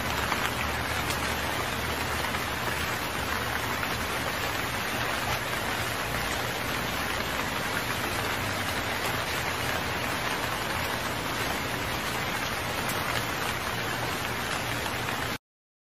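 Rain falling steadily and heavily on a wet road, an even hiss that cuts off abruptly near the end.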